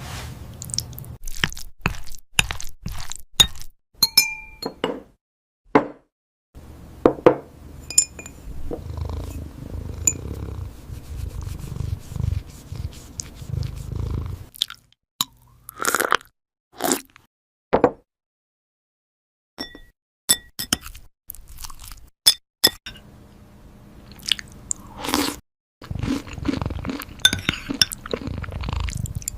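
A cat chewing and crunching its food: runs of irregular sharp crunches, with short pauses between bites.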